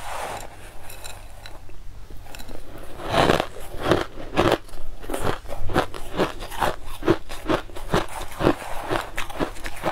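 Crushed ice crunched between the teeth close to the microphone: after a brief scrape of a plastic spoon in the ice, a steady run of sharp crunches, about two or three a second, from about three seconds in.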